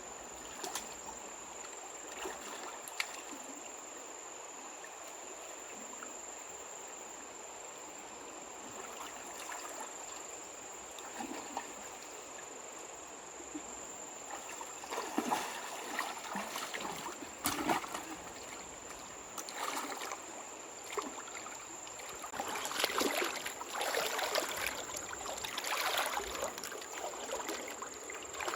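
Water trickling and running steadily, then irregular splashing in shallow water that starts about halfway through and grows busier near the end.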